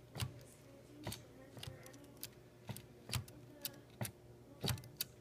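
A 1971 Hermes typewriter's mechanism clicking: about ten sharp, irregular mechanical clicks as its keys or levers are worked.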